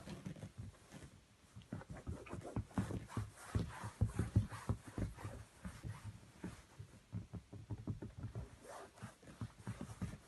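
Chihuahua puppy playing against a hand on a fabric sofa: small puppy noises mixed with quick, irregular soft scuffs and taps, several a second.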